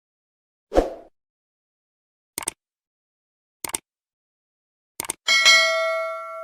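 Edited-in sound effect over dead silence: a low thump, three short double clicks about a second apart, then a bell strikes and rings out, fading slowly.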